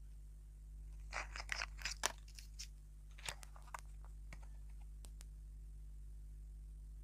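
Faint crackling and crinkling of a small clear plastic packet being handled and picked open to free a hologram disc from a surprise egg. The crackles come in a quick cluster from about a second in, then a few scattered clicks follow before the handling goes quiet.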